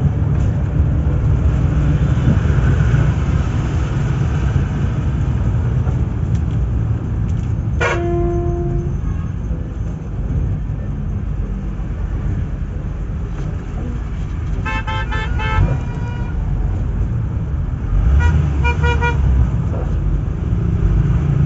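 Inside a moving local bus: a steady low engine and road rumble. A horn sounds once for about a second some eight seconds in, and later comes two runs of quick, pulsing horn toots.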